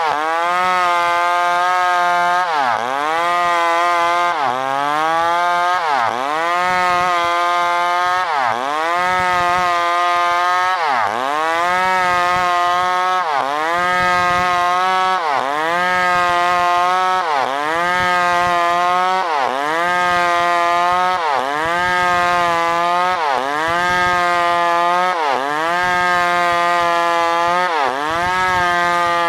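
New West PRO 888 chainsaw, a large two-stroke saw built like the Stihl 038/381, cutting wood at full throttle. Its engine pitch drops as the chain bites under load and recovers, in a steady rhythm about every second and a half to two seconds.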